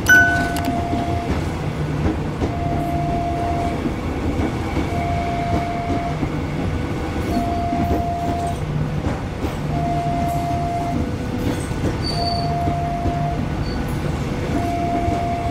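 Electric commuter train passing close by, with a steady rumble and wheel clatter. An electronic warning tone sounds for about a second, pauses and repeats roughly every two seconds. A short chime sounds at the very start.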